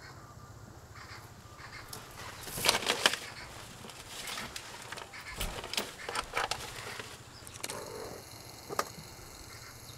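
Irregular bursts of rustling and scrabbling as a hedgehog climbs off a padded seat into a plastic container, loudest in a cluster a little under three seconds in, with a sharp crackle near the end.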